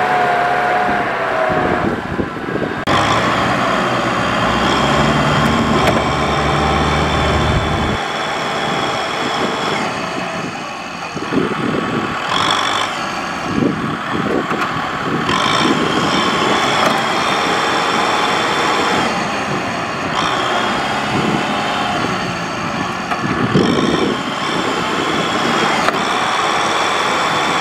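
Diesel tractor engines working under load as one tractor tows another stuck tractor out of deep mud. The engine note keeps rising and falling.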